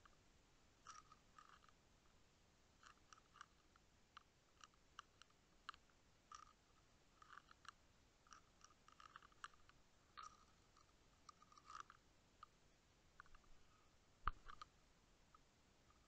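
Faint, irregular clicking and ticking heard underwater, with one sharper knock about fourteen seconds in.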